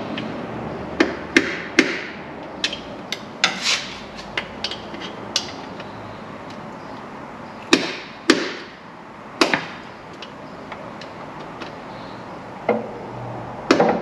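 Hammer blows knocking at a stuck breather fitting on the underside of a 4WD's drivetrain, trying to drive it off. The strikes come at irregular intervals: several sharp, loud ones in quick groups and lighter taps in between, some with a short ring.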